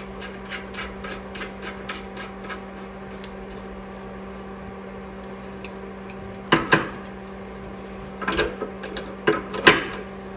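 A wrench tightening the locking nut on an adjustable rear traction arm to fix the arm's length: a quick run of light metal clicks for about three seconds, then a few sharper metal clanks in the second half.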